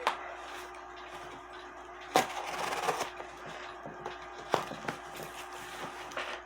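Cardboard shipping box being opened by hand: scattered knocks and clicks, with a short scraping rustle about two seconds in after the loudest knock.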